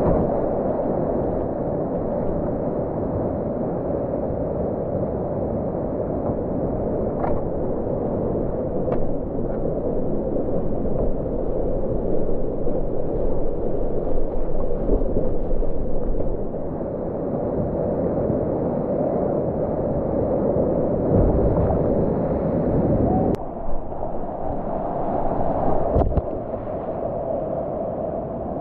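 Whitewater rapids rushing loudly and steadily around a kayak, with water splashing onto the camera. There is a heavier low rumble for a few seconds midway, and a few sharp clicks stand out.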